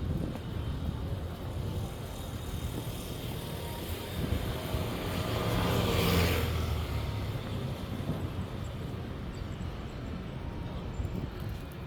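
Street traffic noise with a motor vehicle passing close by, building up and fading away around the middle, over a steady low traffic rumble.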